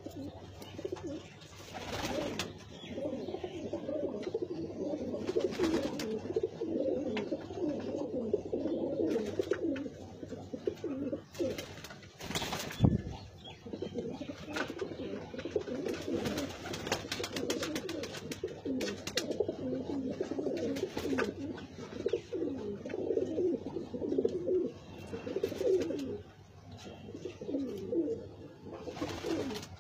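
A flock of domestic high-flyer pigeons cooing continuously, many coos overlapping, with a few sharp knocks, the loudest about halfway through.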